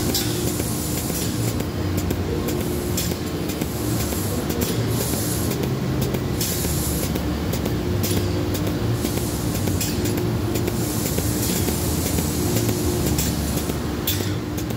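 Industrial piston pump with a pneumatically actuated dosing valve running: a steady mechanical hum with repeated short hisses every second or so.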